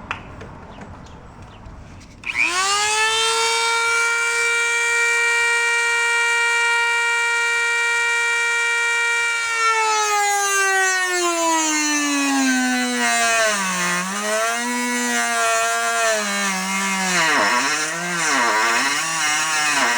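Small high-speed rotary cutting tool starting up about two seconds in with a steady high whine, then its pitch sags and wavers repeatedly from about halfway on as it bites into the Civic's steel front fender, cutting the hole for a side marker.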